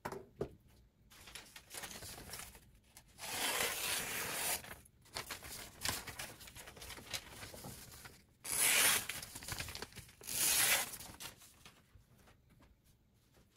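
Bursts of rustling, scraping handling noise: a long burst about three seconds in, and two shorter, louder ones near the end.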